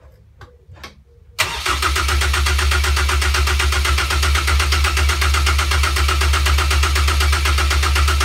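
A few faint clicks, then the Caterham 420R's 2.0-litre Ford Duratec four-cylinder engine fires about a second and a half in, catching at once, and runs steadily. This is the first start of a newly built engine.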